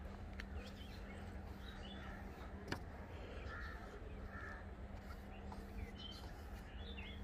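Faint crows cawing, a few short calls around the middle, over a steady low hum, with one sharp click a little before the middle.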